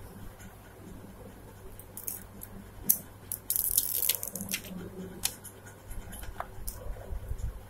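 Clear plastic protective film being peeled and crinkled off a smartphone's screen: scattered crinkles and clicks, with a longer crackling burst about three and a half seconds in.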